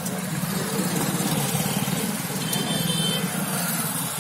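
Bus diesel engine running steadily, with road and cabin noise, and a short high-pitched tone a little past halfway.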